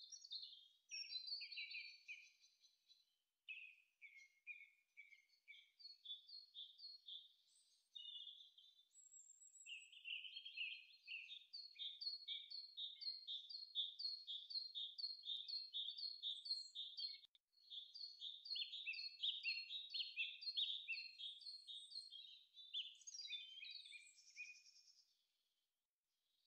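Birdsong: quick, repeated series of high chirps from one or more small birds, several phrases running together with short pauses.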